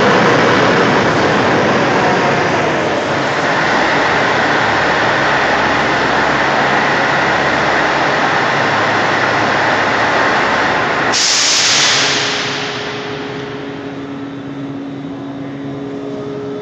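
MPM rail maintenance vehicle running along the métro track, a loud steady mix of engine and wheel noise. About eleven seconds in, a sudden sharp hiss of air bursts out and fades over a second. After that the sound settles to a quieter steady engine hum.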